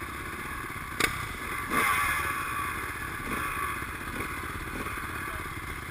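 Four-stroke Honda CRF dirt bike engines idling, with a few short throttle blips and a sharp click about a second in.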